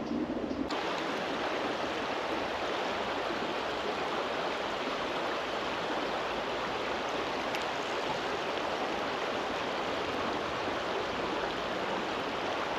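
Steady rush of flowing river water, as from a small current or riffle, starting abruptly under a second in.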